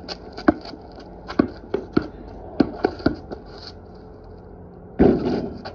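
A basketball bouncing on a concrete driveway: a run of irregular, sharp bounces, then a pause, and a short loud burst of rushing noise about five seconds in.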